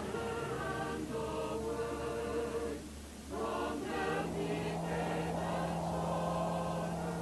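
Film soundtrack music with a choir singing. The level dips briefly about three seconds in, and a steady low note comes in about a second later.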